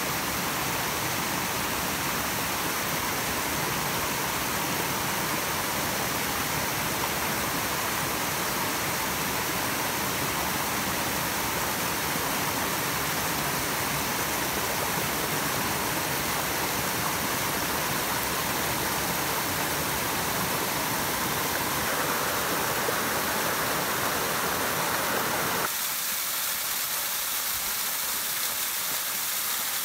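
Steady rushing water of a mountain creek spilling over small falls and cascades. Near the end it switches abruptly to a thinner, hissier rush with less low rumble.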